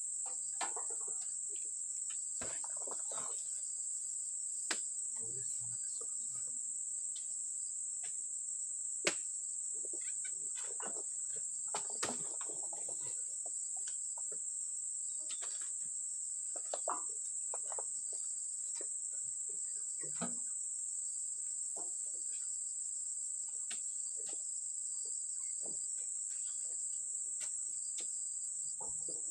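Steady high-pitched insect drone, with scattered knocks and thuds as oil palm fruit bunches are thrown up onto a truck's load.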